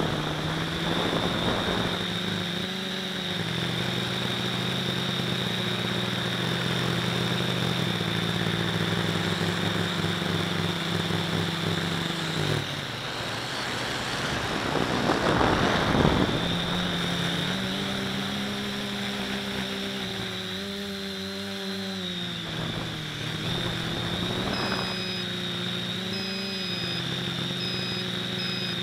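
FPV quadcopter's motors and propellers buzzing in flight, heard from its own onboard camera, the pitch shifting up and down with the throttle. A louder noisy rush comes about halfway through, and short high beeps repeat near the end.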